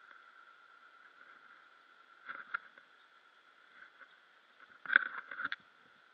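Water splashing close to a camera at the surface, heard muffled: two short bursts, a small one about two and a half seconds in and a louder one about five seconds in, over a steady hiss.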